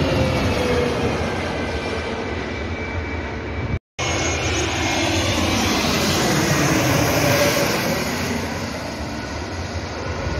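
Turbofan engines of an Airbus A320neo-family airliner passing low overhead on landing approach: a loud, steady jet noise with whining tones that slide down in pitch as it goes by. The sound breaks off for a moment about four seconds in, then a second low pass follows, its whine rising and falling.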